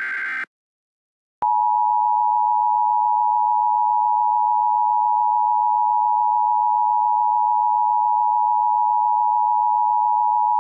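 The tail of an Emergency Alert System SAME header, a short burst of warbling data tones, then about a second of silence and the EAS attention signal: a steady, unbroken two-tone alarm tone just under 1 kHz.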